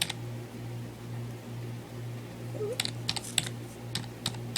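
Computer keyboard keys clicking as a password is typed: a click at the start, a quick run of keystrokes about three seconds in, and a few more near the end, over a low steady hum.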